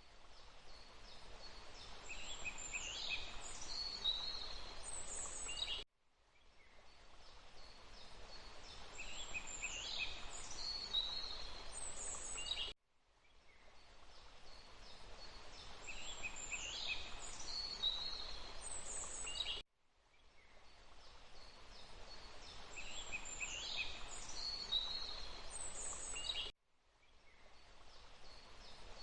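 Forest ambience of birdsong over a steady hiss: several birds chirping and whistling, including a descending call. It is a loop of about seven seconds that repeats four times, each pass cutting off abruptly and fading back in.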